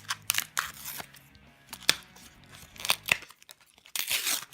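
Foil booster-pack wrapper being handled and torn: a string of sharp crinkles and crackles, with a longer tearing rip near the end.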